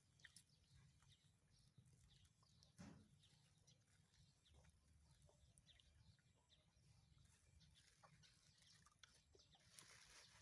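Near silence: faint outdoor background with scattered small high chirps and clicks, and one soft thump about three seconds in.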